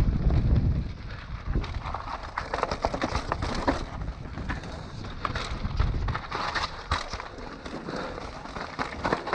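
Mountain bike rolling down a rocky trail: tyres crunching over loose stones with many irregular sharp clicks and rattles. Wind buffets the microphone for about the first second.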